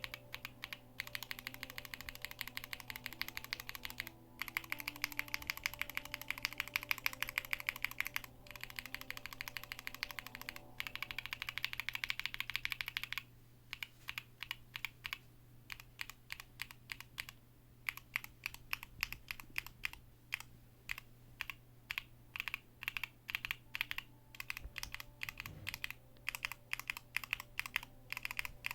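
Typing on a mechanical keyboard with linear switches: rapid, continuous keystrokes for about the first half, broken by short pauses, then slower, separate key presses.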